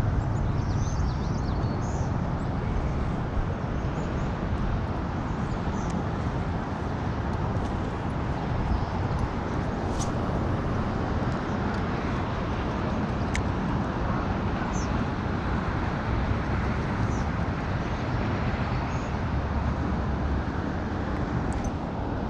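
Steady low outdoor rumble, with faint short high chirps now and then and two sharp clicks, about ten and thirteen seconds in.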